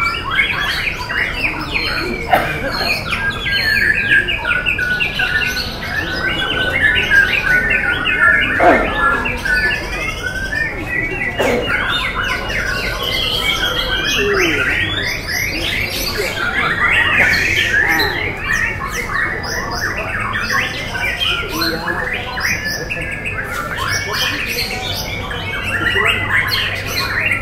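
White-rumped shamas (murai batu) singing: a dense, unbroken stream of overlapping fast whistled phrases and trills that carries on without a pause.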